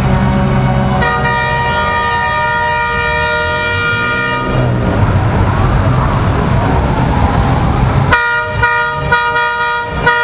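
A vehicle horn sounds one long blast of about three and a half seconds, starting about a second in, then a run of short, quick blasts from about eight seconds, over the low rumble of passing car engines.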